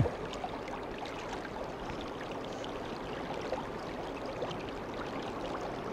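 Steady rush of a river flowing past, with faint scraping and dabbing of hands working damp sand.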